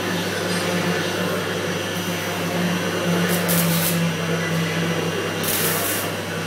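OTC Almega AX-V6L robotic welding cell running: a steady low machine hum, with two short bursts of hiss about three and a half and five and a half seconds in, as the torch comes down to the workpiece.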